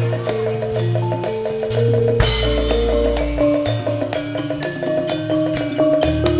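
Campursari band accompaniment: a melody of held notes stepping over a bass line and drum kit, with a cymbal crash about two seconds in.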